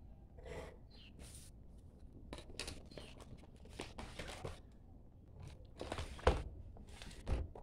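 Sheets of paper rustling in short strokes as they are lifted and flipped, the loudest about six seconds in and again near the end.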